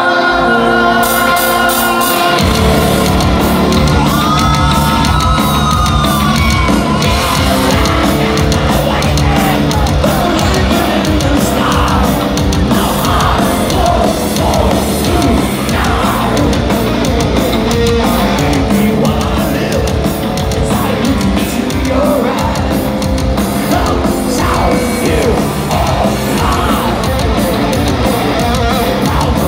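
Heavy metal band playing loud and live through an arena PA. A sustained chord gives way to cymbals about a second in, then the full band with drums and distorted guitars comes in about two seconds in. A male lead vocal is heard over the band later on.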